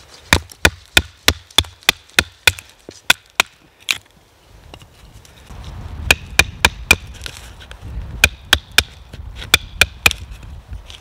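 Batoning: a wooden baton knocks sharply on the spine of a Kephart-pattern fixed-blade knife, about three strikes a second, driving the blade down through a small log to split it. The strikes pause about four seconds in, then start again over a low rumble.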